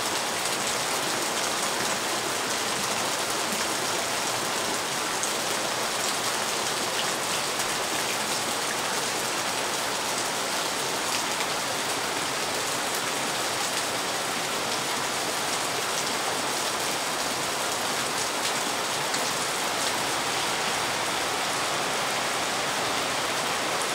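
Heavy rain falling steadily: a dense, even hiss of drops with faint sharper ticks.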